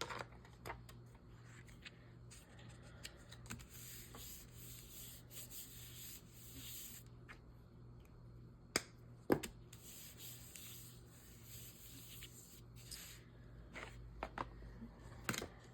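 Paper being rubbed and smoothed down by hand, with soft scratchy strokes: a glued paper cut-out being pressed flat. A few sharp taps come about nine seconds in and again near the end.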